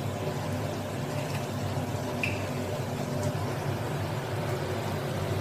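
Sauce poured from a bottle into a steel pan of cooking vegetables, over a steady low hum.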